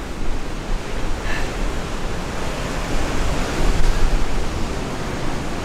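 Strong wind buffeting the microphone: a loud, even rush with uneven low rumbling gusts.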